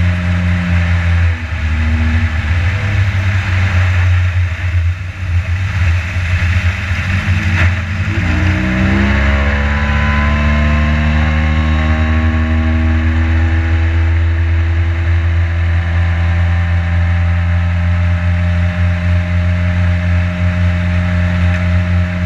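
Boat motor running underway. It eases off about a second in, then is throttled up about 8 seconds in, its pitch climbing for several seconds before holding steady at speed.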